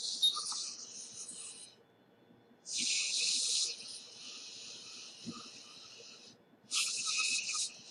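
Bursts of hissing from microsoldering rework on an iPhone logic board, a few seconds each, three times, with a faint crackle under them.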